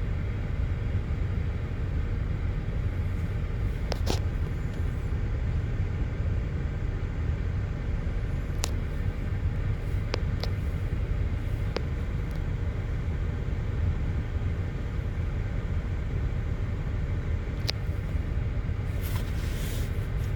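The 3.6-litre V6 of a 2008 GMC Acadia idling with a steady low rumble while it misfires on several cylinders (code P0300), a fault later traced to a bad ignition coil and spark plug on cylinder 5. A few faint clicks sound over it.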